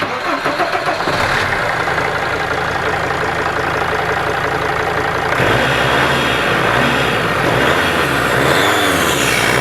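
Mercedes Sprinter engine starting abruptly and running. From about five seconds in, the revs rise and fall repeatedly, with a gliding high-pitched whistle from the new turbocharger near the end.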